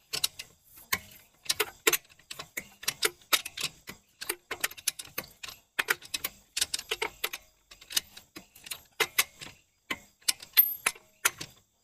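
Hand socket ratchet clicking in quick runs of ticks as its handle is swung back and forth on a truck wheel's lug nuts, loosening them.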